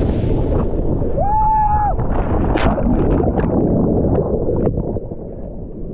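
Churning whitewater of a breaking wave rushing around the surfer, with heavy wind buffeting on the action camera's microphone. About a second in comes one drawn-out shout, and the rush falls away a little near the end.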